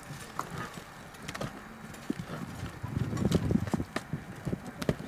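A wood bonfire crackling and popping: irregular sharp cracks and knocks, thickest about three seconds in.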